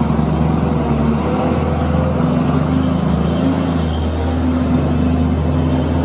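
Hino truck's diesel engine running with a steady low drone, with road and engine noise over it.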